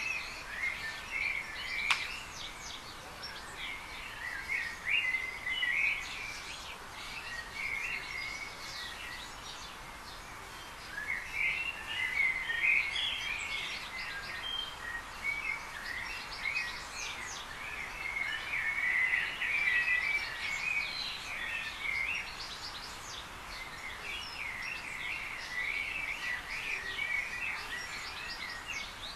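Garden birds chirping and singing in overlapping bouts, with brief lulls, over a steady background hiss.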